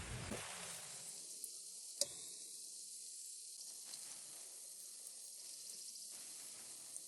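Food sizzling in a hot pan: a steady frying hiss with an occasional sharp pop.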